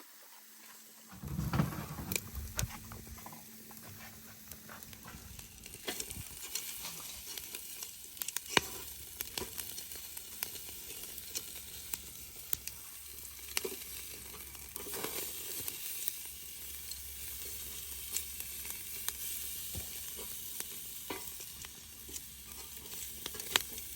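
Food sizzling as it fries, with a steady hiss and many scattered pops and clicks from stirring.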